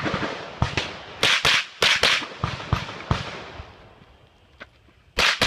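Rapid semi-automatic fire from an AR-style carbine: about ten shots in quick succession over the first three seconds, a pause of about two seconds, then another shot near the end.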